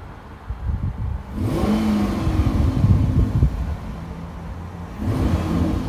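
Chrysler 300C's 5.7-litre Hemi V8, warmed up, revved gently and heard from the rear at the exhaust: a quiet, slight little grumble. It swells about half a second in, eases back to idle, and rises again a little near the end.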